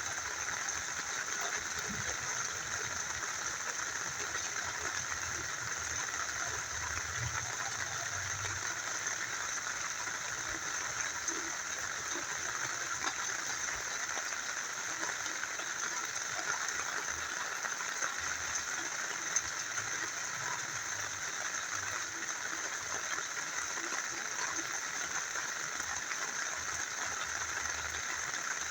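Small river flowing steadily, with rain falling and a few faint drip-like ticks.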